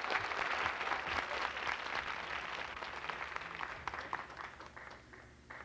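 Studio audience applauding, the clapping fading away over about five seconds.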